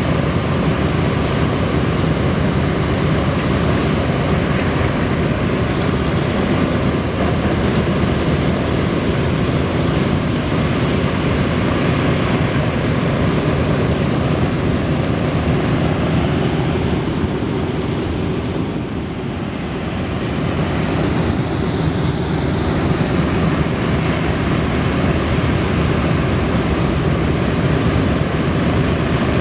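B-17 Flying Fortress's Wright R-1820 Cyclone radial engines running with propellers turning: a loud, steady, dense noise that eases slightly about two-thirds of the way through.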